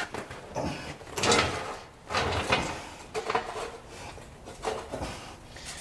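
Metal brake parts being handled at a truck wheel hub: irregular scrapes and clunks, several over a few seconds.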